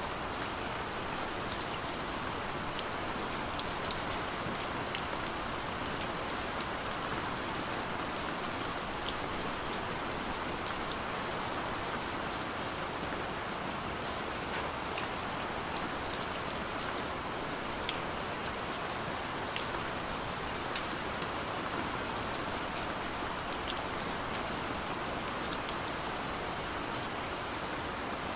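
Steady gentle rain: an even hiss of falling rain with scattered sharper drops ticking on a surface.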